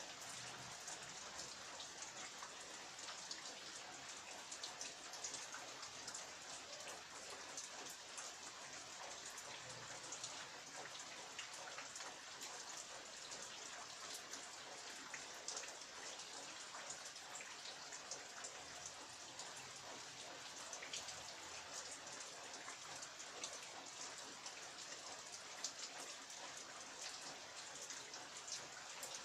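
Heavy rain falling steadily, with many individual drops striking close by as sharp ticks over a constant hiss.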